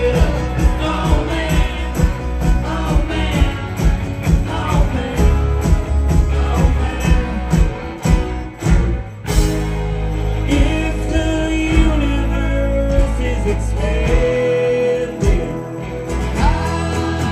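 Live band playing: electric guitars, bass guitar and drums with men singing at the microphones. The band drops out for a moment about halfway through, then comes back with held sung notes.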